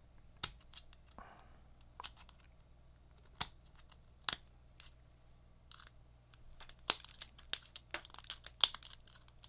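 Steel split ring clicking against the tips of carbon fiber split-ring pliers and a hook eye as it is pried open and worked onto the hook: a few sharp clicks spaced a second or so apart, then a quick run of dense clicking near the end.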